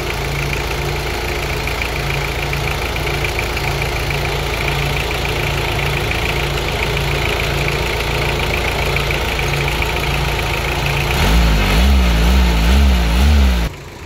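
Toyota 2C four-cylinder diesel engine idling steadily, with a regular low pulsing beat. About eleven seconds in, a louder low sound that wavers up and down swells for a couple of seconds, then the sound drops away sharply near the end.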